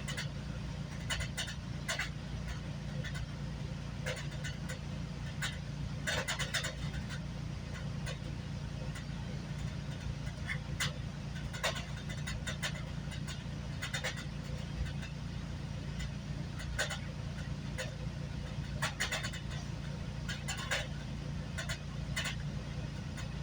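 GO Transit commuter train in motion, heard from inside the passenger coach: a steady low rumble from the running gear, with scattered clicks and rattles.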